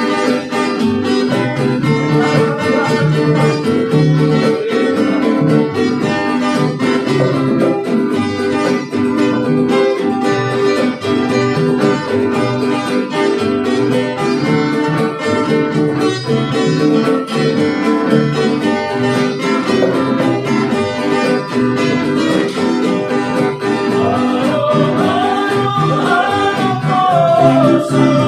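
An acoustic string band plays a song: several acoustic guitars and a ukulele strummed together over a hand drum, with a steady rhythm. A voice comes in singing near the end.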